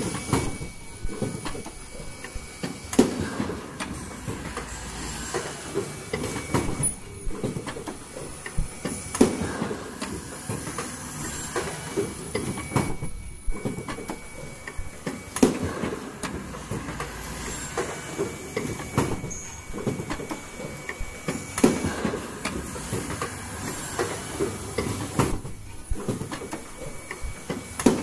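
Automatic N95 cup mask machine running: a steady mechanical clatter with sharp clunks repeating about every two seconds as its stations cycle.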